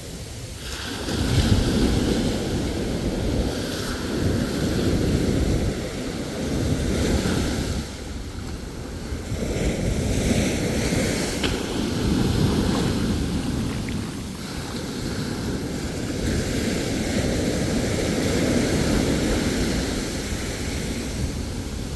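Ocean waves breaking and washing on the shore, swelling and easing every few seconds, with wind rumbling on the microphone.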